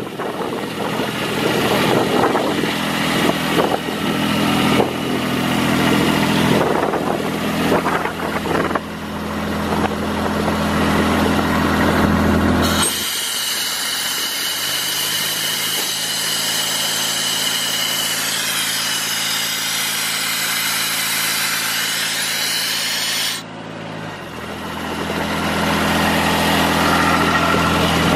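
Kubota D1105 three-cylinder diesel engine of a Sullair S38 portable air compressor running steadily. For about ten seconds in the middle the engine note changes and a strong hiss sounds over it, then the earlier running sound returns.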